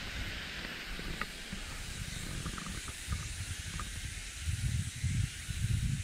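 Steady high hiss of forest outdoor ambience, with a few faint short chirps. Low rumbling bursts on the microphone grow stronger in the last second and a half.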